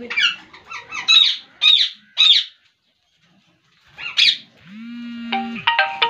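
Parakeets squawking: a quick series of short, shrill calls, then, after a brief gap, one more squawk, a long held lower tone and a few short whistle-like notes near the end.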